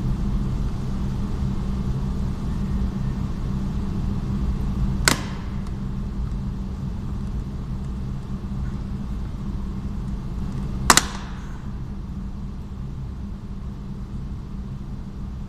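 Two sharp snaps about six seconds apart: the stiff plastic retaining clips of a Renault Mégane 3 coupé door trim panel popping free as the panel is pried off. A steady low hum runs underneath.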